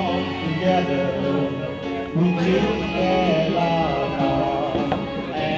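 Karaoke backing track of a slow ballad playing through the karaoke machine's speaker, with guitar and a wavering melody line over sustained chords.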